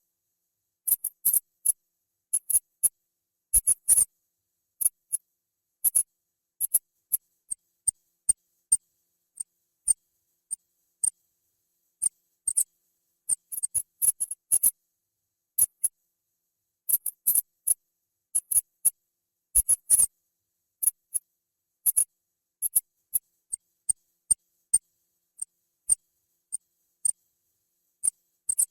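Rat squeaking: short, high-pitched squeaks, some single and some in quick clusters, with silent gaps between.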